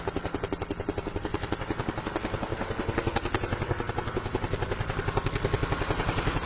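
Helicopter rotor sound: a fast, even chopping beat of about a dozen pulses a second, heavy in the low end, growing somewhat louder from about halfway through.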